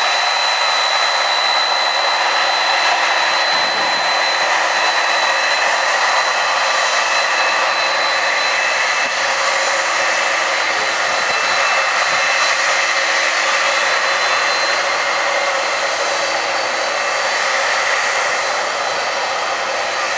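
Boeing 767 jet engines running: a steady loud rush with a thin high whine that is strongest in the first few seconds.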